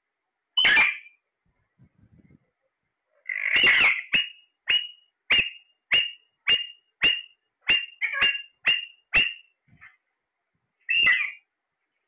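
Caged parakeet calling: a harsh call about half a second in, a longer call just past three seconds, then a quick, even run of about a dozen short calls at roughly two a second, and one more call near the end.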